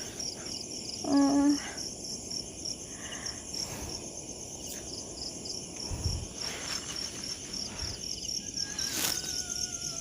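Crickets chirping steadily in a rapid, even high trill, with a brief human voice sound about a second in and a faint falling tone near the end.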